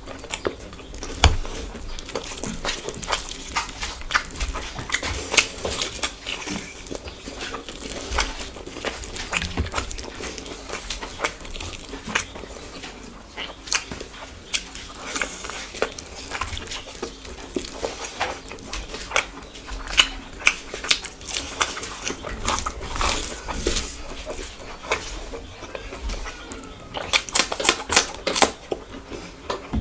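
Close-miked eating sounds: a person chewing rice and fried food, with wet mouth clicks and lip smacks. A quick run of sharp clicks comes near the end.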